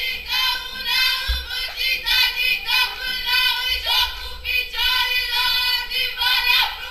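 High voices singing a song together, with held notes and no break. There is a short low thud about a second in.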